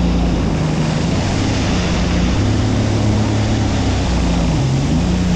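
Jet ski engine running under way, its pitch steady for a while, then dipping and coming back up twice near the end as the throttle is eased and reapplied, with water rushing underneath.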